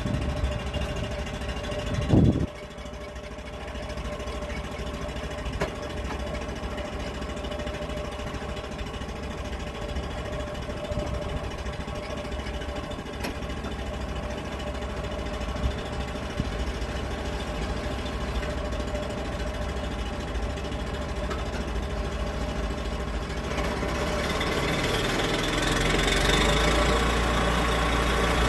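Engine running steadily, with a heavy thump about two seconds in; near the end the engine grows louder and brighter, as if taking on load.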